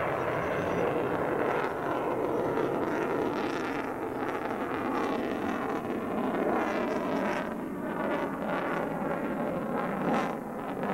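Military jet aircraft flying overhead: steady engine noise with a faint whine that slowly falls in pitch.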